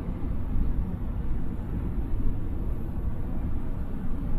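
Steady, deep rumbling noise of a steelworks converter hall, heard high under the hall roof in the secondary metallurgy area.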